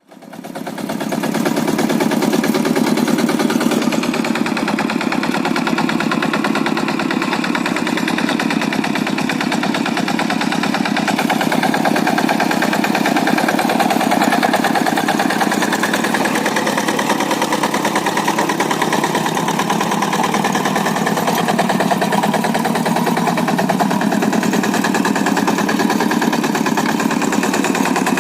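Single-cylinder Kubota diesel engine of a Quick G100 two-wheel hand tractor running steadily with a rapid chugging beat; the sound fades in over the first second or two.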